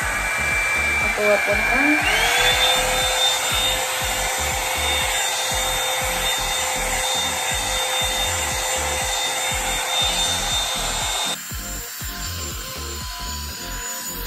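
Hot Tools One Step Blowout Volumizer hot-air brush running, a steady rush of air with a motor whine. About two seconds in, the whine glides up to a higher pitch as it goes to a higher speed setting. It then holds steady until it cuts out abruptly about eleven seconds in.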